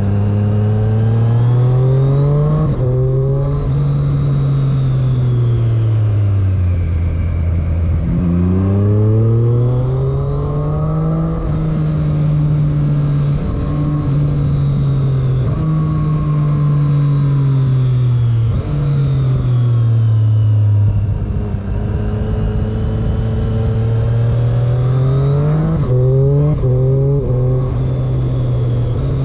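Triumph Street Triple S 660's three-cylinder engine under way, heard from the rider's seat. Its pitch climbs as it accelerates and drops away as it slows, with quick steps in pitch at gear changes, under a steady rush of wind noise.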